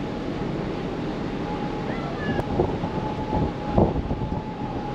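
Large passenger ferry under way: a steady rumble with a constant hum, and wind on the microphone. A couple of knocks, the louder one about four seconds in.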